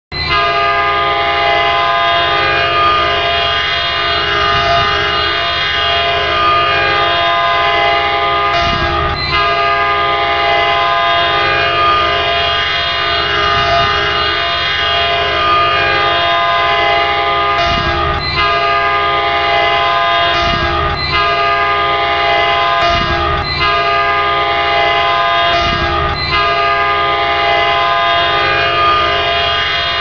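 Metrolink locomotive's K2 air horn, played as a goal horn, sounding one long, loud, steady multi-note chord. A few brief clicks or breaks interrupt the chord, around a third of the way in and again in the second half.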